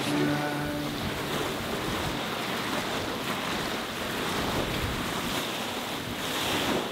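Steady rush of wind and waves around a sailboat under sail in choppy water, with a brief pitched tone in the first second.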